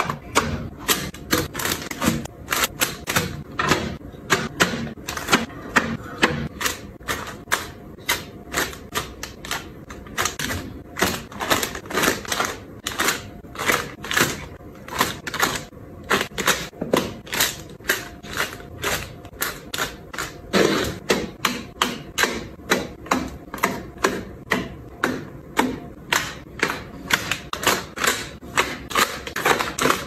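A quick, steady run of taps and clicks, about two or three a second. The sound comes from items being set down one after another on glass-fronted metal shelves: aluminium drink cans first, then packaged snacks.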